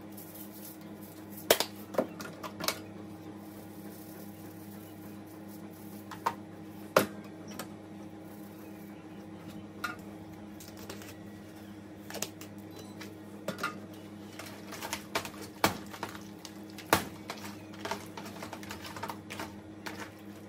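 Scattered sharp clicks and taps from a plastic spice shaker's flip cap and a plastic mixing bowl as raw fish pieces are seasoned and turned by hand, over a steady low hum.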